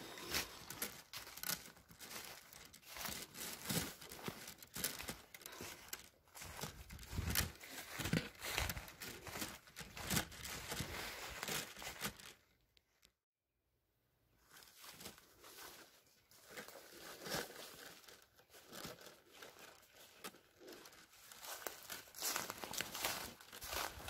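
Footsteps crunching and crackling through dry fallen leaves, an irregular run of steps that cuts out for about a second and a half just past the middle.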